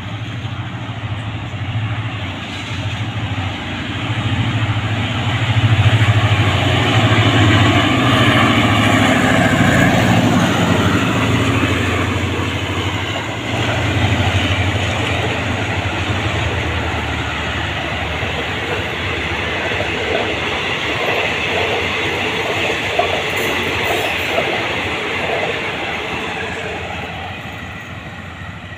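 Diesel-hauled passenger train passing close by. The locomotive's engine grows louder and is loudest about six to ten seconds in. A long string of coaches follows, their wheels clacking over the rail joints, and the sound fades as the train draws away near the end.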